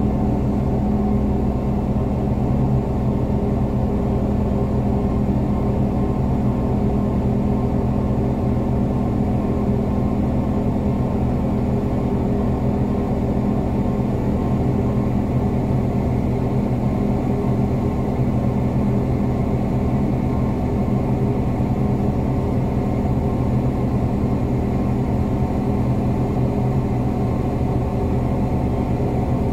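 Crane's engine running steadily at constant speed, heard from inside the operator's cab: an even low hum that holds the same pitch throughout.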